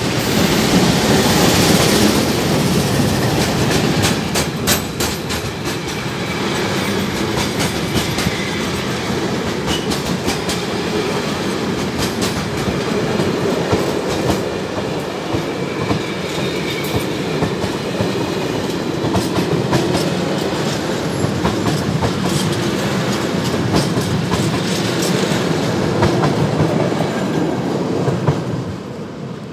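Freight train wagons rolling past at speed: a steady rumble with wheels clacking over the rail joints. It is loudest in the first couple of seconds and falls away near the end as the train passes.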